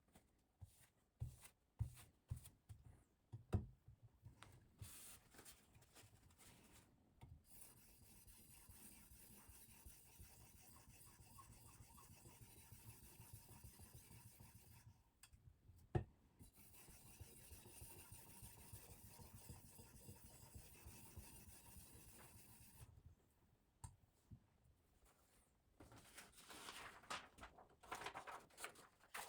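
Faint, steady rubbing of a silicon carbide oil stone against a Damascus steel knife edge during sharpening, after a few light clicks and with one sharp click partway through. A louder crackly rustle comes in near the end.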